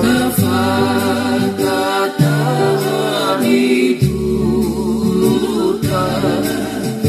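Gospel hymn: voices singing in harmony over held low chords that change every second or two, with vibrato on the sustained notes.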